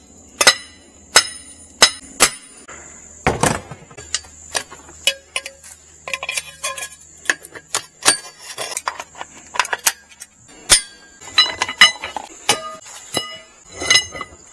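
Hammer blows on a metal pipe being driven into the ground, each strike ringing briefly. There is a quick run of blows at the start, scattered lighter knocks and clinks in the middle, and another run of ringing strikes near the end.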